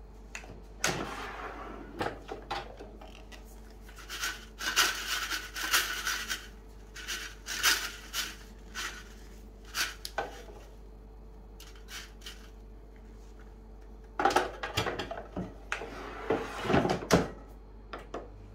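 Philips Airfryer XXL's basket drawer pulled out, frozen fries rattled and turned in the basket, then the drawer slid back in with a few knocks about two-thirds of the way through, over a steady low hum.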